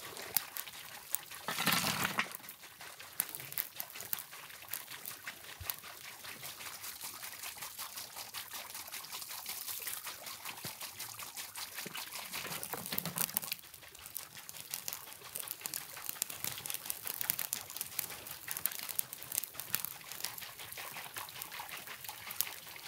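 Water running from a stone spring spout and pouring into an enamel pot, with fine crackling throughout and two brief louder bursts, about two seconds in and near the middle.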